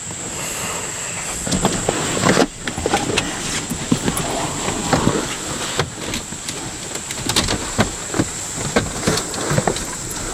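People shifting and climbing about between the seats of a minivan: rustling clothes and upholstery with many small knocks and bumps against the seats and trim.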